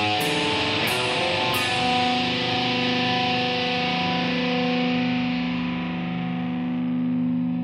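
Thrash metal recording ending a song: a few last drum and cymbal hits in the first two seconds, then a distorted electric guitar chord left to ring out, its brightness slowly fading.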